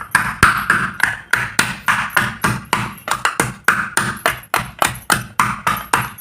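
Rapid, steady pounding in a bowl, about four to five strikes a second, each with a short ringing clink, as ginger is crushed very fine.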